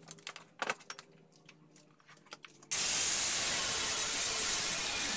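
A few light metallic clinks and knocks, then about two and a half seconds in a 4-inch hand angle grinder with a cutting disc starts cutting a steel plate: a sudden, loud, steady grinding hiss that carries on.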